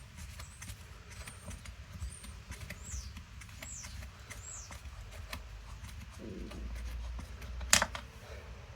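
Faint scattered clicks and taps of hands and tools handling the chainsaw's parts on the bench, with three short high falling chirps in the middle and one sharper click near the end.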